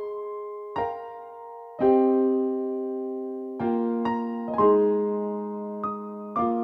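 Slow, gentle piano music: chords and single notes struck about a second apart, each left to ring and fade.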